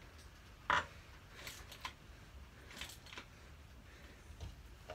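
Hand tools clinking against metal during work on the motorcycle's rear shock mount: one sharp knock just under a second in, then a few faint clicks and scrapes.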